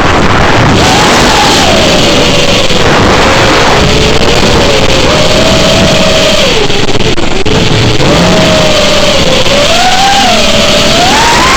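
FPV quadcopter's brushless motors and propellers whining over a loud rushing noise, the pitch dipping and climbing with the throttle and rising sharply near the end.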